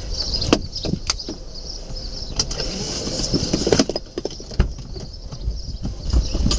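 Inside a stopped Buick Rendezvous: the engine idling as a low rumble under a steady hiss, with scattered small clicks and knocks at irregular times.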